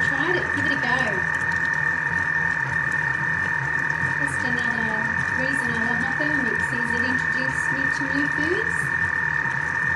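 Thermomix motor running steadily, with a high whine over a rumbling low hum as it chops and stirs the jackfruit mix.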